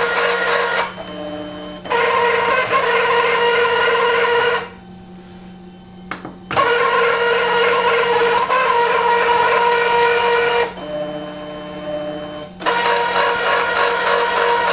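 CarveWright carving machine's board-feed motor whining as it draws the board through to measure it. The whine drops to a quieter, lower tone about a second in and again near the end. Around the middle it stops for about two seconds, then resumes after a sharp click.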